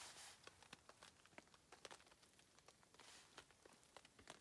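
Near silence, with faint, irregular small ticks and crackles scattered through it.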